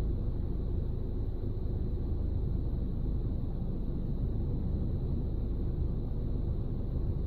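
Steady low rumble inside a parked car, even throughout, with a faint steady high tone above it.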